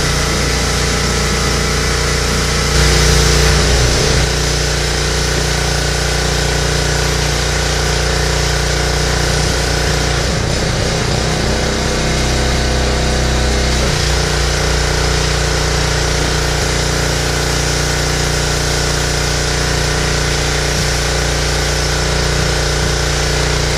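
Honda gasoline pressure washer's small single-cylinder four-stroke engine running steadily, with the hiss of the spray from the wand; the hiss is loudest a few seconds in. Midway the engine's note wavers in pitch for a few seconds before settling again.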